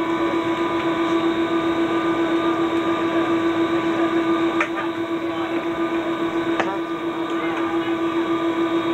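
Steady jet engine drone inside the cabin of a KC-135 tanker moving along the ground, dominated by one strong hum with several higher whining tones above it and a slight regular pulsing. A few faint knocks come through about halfway and near the end.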